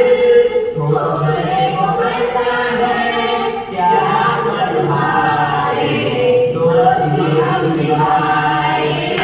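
Several voices singing a Hindi song together in unison, a teasing song about a friend's loud snoring, with long held notes and no break.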